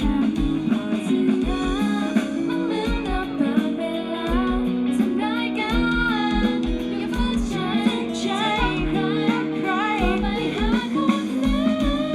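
Live pop song: a sung lead vocal over a band with guitar and a low kick-drum beat.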